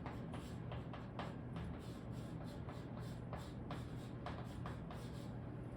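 Pen writing in quick, short scratching strokes, several a second, over a low steady hum.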